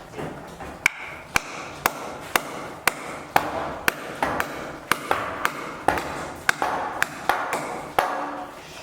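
Hammering: sharp strikes at a steady pace of about two a second, each with a short ring.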